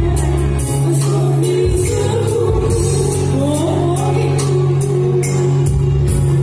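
A Gayo song: a singer's voice gliding through a melody over instrumental accompaniment with sustained bass notes and a steady beat.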